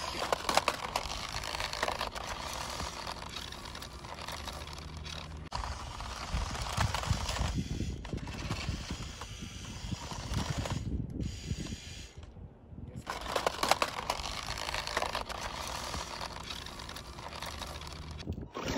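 Toy remote-control pickup truck driving over gravel: its small electric motor and plastic gears whirring while the wheels crunch and click over loose stones, with a short pause about twelve seconds in.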